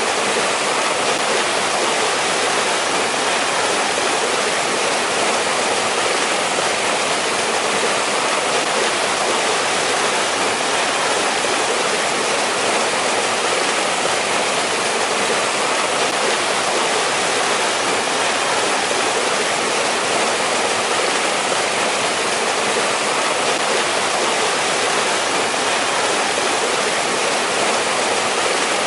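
Mountain stream rushing over rocks in a valley: a steady, unbroken water noise.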